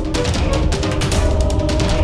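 Loud, aggressive background music with fast, driving drums and a heavy bass.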